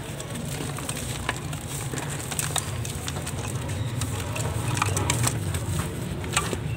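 Dry sand-and-cement chunks crushed and crumbled by hand over a metal bowl: gritty crunching with many small sharp cracks and a patter of falling grit. A steady low rumble runs underneath.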